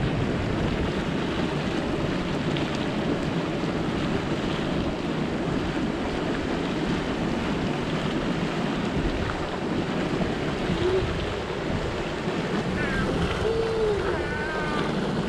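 Steady rushing hiss of a steaming volcanic vent in a hydrothermal area, mixed with wind buffeting the microphone. A few faint, short whistle-like calls come near the end.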